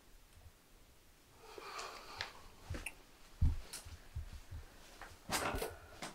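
People moving about: faint rustling and footsteps on a wooden floor, with a dull thump about three and a half seconds in and a short rustle near the end.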